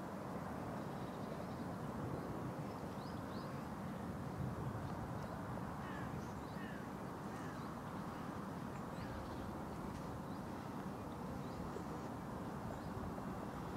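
Outdoor ambience: a steady low background rumble with scattered faint bird calls, a few short high chirps and quick downward notes.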